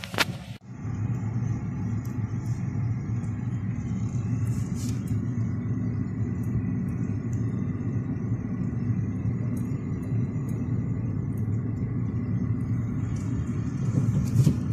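Steady low rumble of a car's engine and road noise heard from inside the cabin while the car is moving, with a brief click right at the start.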